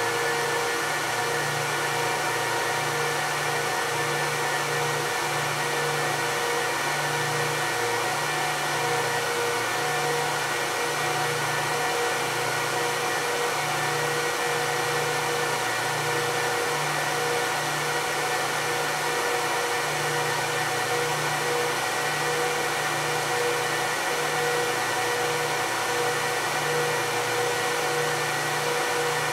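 Apple Xserve server and Xserve RAID cooling fans running steadily: an even, loud whir with several steady whining tones on top and a low drone that pulses unevenly.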